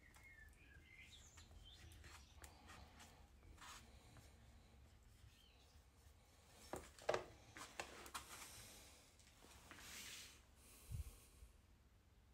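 Quiet handling sounds: rubbing and a few sharp clicks from a plastic squeegee pressed over a sticker on a metal oil filter housing, then a low knock about eleven seconds in as the housing is handled. Faint bird chirps near the start.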